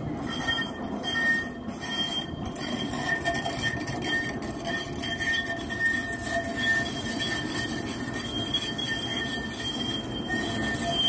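Modern low-floor tram rolling slowly past on curved street track, with a steady rumble of running and a thin, steady high-pitched squeal over it.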